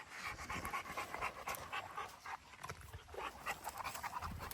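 Dog panting in quick, even breaths.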